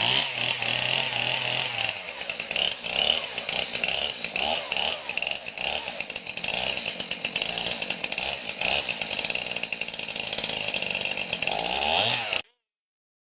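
Stihl MS271 Farm Boss two-stroke chainsaw running at high revs while cutting into a tree, its pitch dipping and recovering as the chain works through the wood. It cuts off abruptly near the end.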